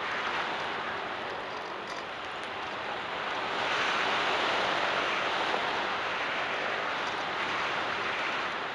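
Air rushing over the onboard camera's microphone of an FPV RC plane in flight, a steady rush that swells louder for a second or two about three and a half seconds in.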